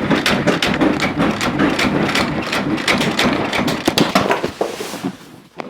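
A vending machine being shaken hard, its cabinet and contents rattling and knocking rapidly, dying away near the end. The shaking is meant to dislodge items stuck in the machine.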